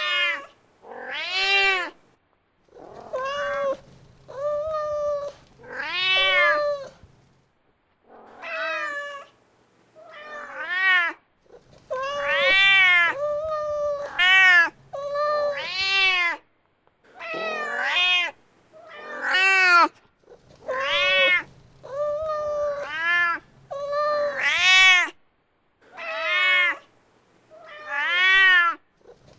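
Mother cat meowing over and over, calling for her kitten: a long run of drawn-out meows, each rising and falling in pitch, one every second or two.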